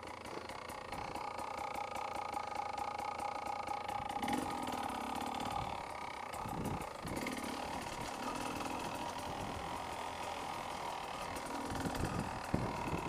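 Beta 300 RR two-stroke enduro motorcycle engine running steadily at low revs while being ridden over rough ground. A few dull thumps come through: about four seconds in, around seven seconds, and again near the end.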